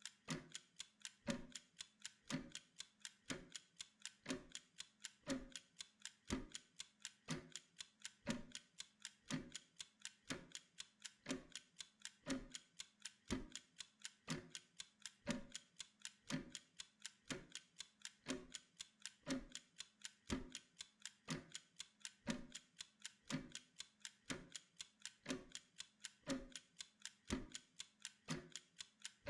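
Wind-up mechanical kitchen timer ticking steadily, several quick ticks a second with a heavier beat about once a second, as it counts down a 25-minute Pomodoro work interval.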